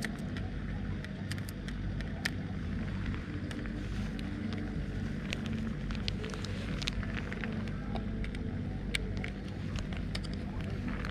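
Scattered sharp clicks and ticks from a baitcasting fishing reel and rod being handled, over a steady low motor hum.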